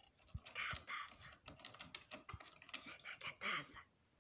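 A cat's claws scratching and raking a sisal-rope scratching post in quick, irregular scrapes and clicks, with a few dull knocks.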